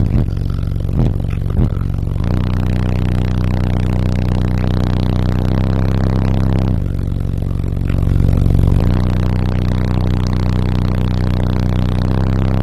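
Bass-heavy music played at very high volume through two Resilient Sounds Team 18-inch subwoofers, heard inside the car's cabin. Long, low bass notes are held for seconds at a time, changing pitch about two and seven seconds in, and are loudest around eight to nine seconds in.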